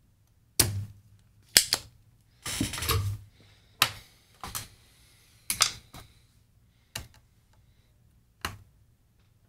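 Spring-loaded desoldering pump (solder sucker) being cocked and fired while desoldering: a series of about eight sharp snaps and clicks, with a short scraping rattle about two and a half seconds in.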